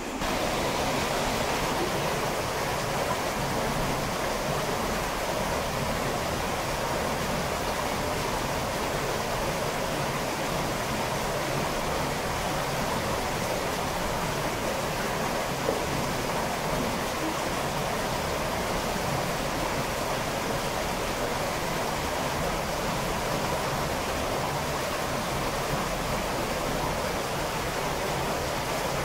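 Cave stream running high after heavy rainfall, its white water rushing steadily through a narrow rock passage.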